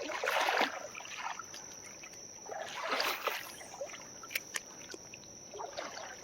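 Creek water splashing and sloshing in a few irregular bursts, the loudest near the start and another about halfway, with a couple of sharp clicks. A steady high insect drone runs underneath.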